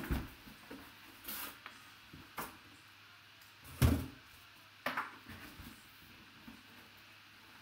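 A box holding a full-size football helmet being handled and opened: a few knocks and scrapes, with the loudest thump about four seconds in.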